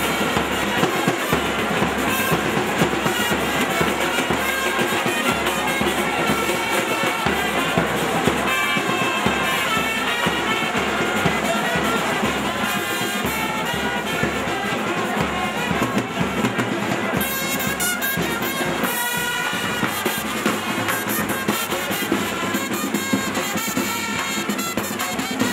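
Music with brass instruments playing over a steady drum beat.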